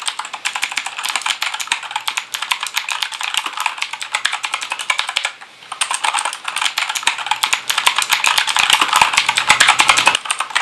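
Keychron K2 mechanical keyboard being typed on rapidly, a fast, dense run of key clicks with a brief pause a little past halfway.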